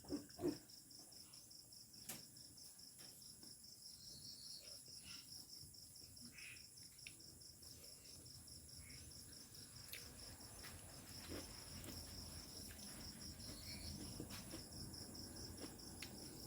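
Faint, steady chirping of crickets with an even, rapid pulse, with a soft knock about half a second in and a few faint clicks.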